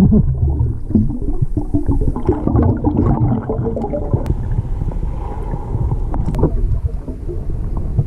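Muffled underwater sound: a low rumble with irregular gurgling and bubbling, typical of a diver's exhaled air escaping from a hookah regulator close to the microphone.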